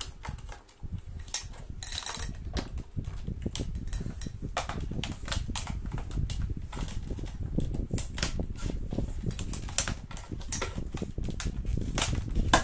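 Irregular clicks and knocks of hard vacuum cleaner parts being handled and fitted, a few sharper than the rest, over a low rumble.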